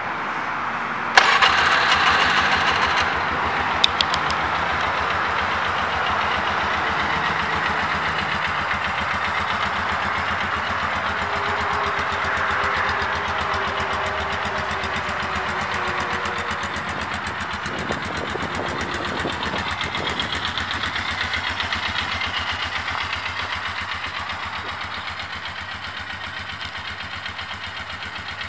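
2005 Polaris ATP 500 H.O. ATV's single-cylinder four-stroke engine starting about a second in, running louder for a couple of seconds, then idling steadily.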